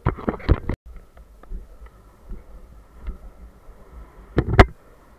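Wind rushing over a moving action camera's microphone above a steady low rumble of longboard wheels rolling on asphalt. There are loud bumps in the first second and again about four and a half seconds in, and the sound cuts out for a moment just under a second in.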